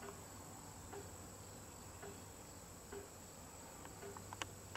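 Quiet room tone with a faint steady high-pitched whine, faint short pips about once a second, and a couple of light clicks near the end.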